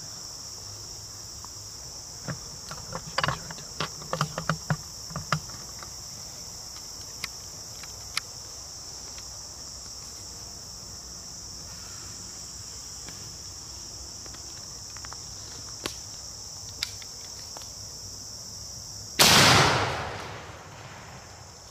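Muzzleloading black-powder shotgun fired once near the end: a single loud report that dies away over about two seconds. A steady high insect chorus runs underneath, with a few small clicks a few seconds in.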